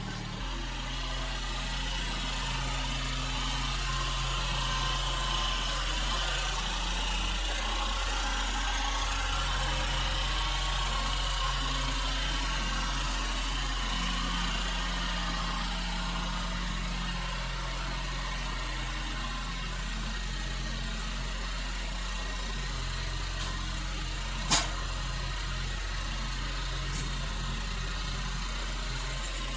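Yanmar B22 mini excavator's diesel engine running steadily while digging, its low hum shifting slightly in pitch and level now and then. A single sharp knock sounds near the end.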